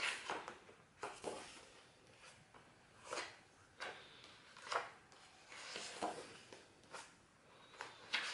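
Thick, matte pages of a photobook being turned one after another by hand, a short papery swish about every second.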